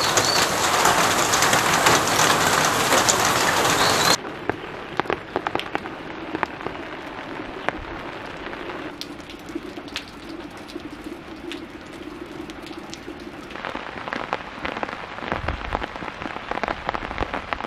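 Rain falling, heavy for about the first four seconds, then lighter after a sudden drop in level, with many single drops striking close by.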